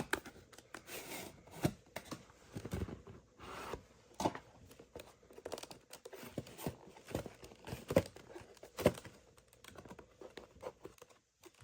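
A small cardboard product box being handled and opened: tearing and crinkling of packaging, with irregular sharp clicks and knocks.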